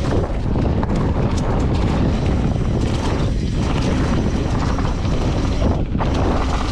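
Wind rushing over the microphone of a body-mounted camera as a mountain bike rolls steadily down a dirt trail, with tyre noise on dirt and leaves and a few light clicks and rattles from the bike.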